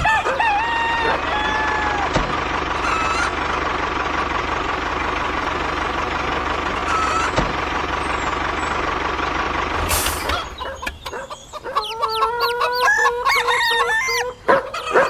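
Chickens clucking and a rooster crowing over a steady motor hum. The hum stops about ten seconds in, leaving a run of quick clucks and chirps.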